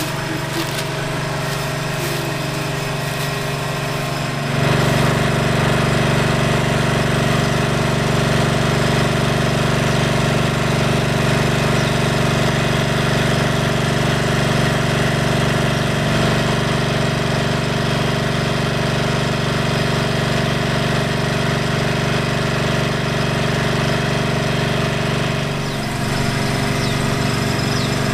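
A small engine running steadily, with an even hum that gets louder about four and a half seconds in and eases a little near the end.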